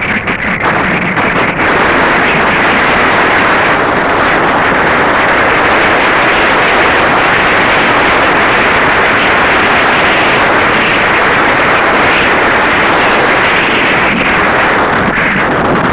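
Heavy wind buffeting the microphone: a loud, steady rush of noise, gustier for the first second or two.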